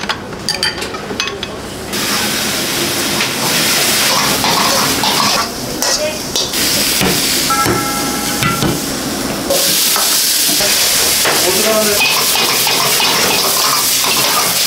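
Food sizzling hard in a wok over a gas burner, with an iron ladle stirring and clanking against the wok. For the first two seconds it is quieter, with dishes clinking.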